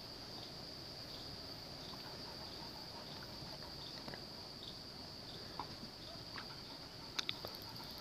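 Faint steady high-pitched whine under light ticks and clicks as a soldering iron and a speaker's circuit board are handled. Two sharper clicks come near the end.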